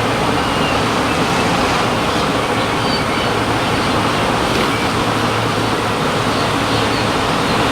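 Loud, steady buzzing of a large honeybee colony stirred up and flying around its opened bucket hive, with a low hum underneath.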